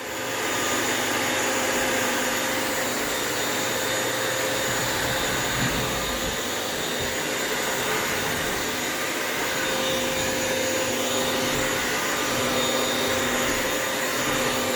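Bissell vacuum mop's motor starting up and then running steadily, a constant whirring suction noise with a low hum, as the machine mops the floor.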